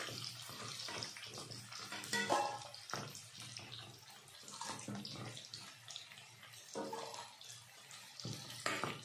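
Metal ladle scraping and tapping in a kadhai as fried jackfruit pieces are lifted out of hot oil, over a light hiss of the oil.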